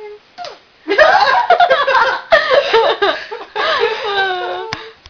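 A single short hiccup, then several people laugh loudly for nearly four seconds at the hiccups coming back right after she said they were gone.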